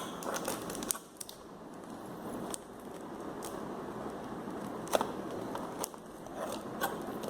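Selfie-stick packaging being opened by hand: rustling and crackling, broken by scattered sharp clicks, the loudest about five seconds in.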